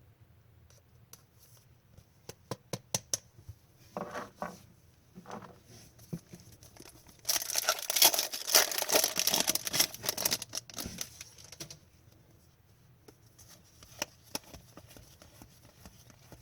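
Trading cards handled with light clicks and taps, then about seven seconds in a card pack's wrapper is torn open and crinkled for about four seconds, loudest of all, before more light taps of cards being handled.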